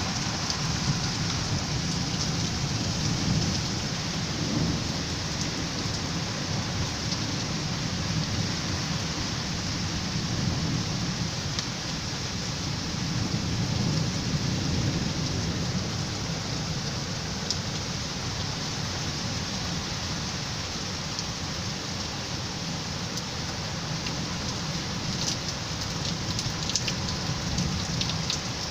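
Heavy rain pouring steadily during a severe storm, with a steady low rumble of gusting wind underneath and a few sharp ticks near the end.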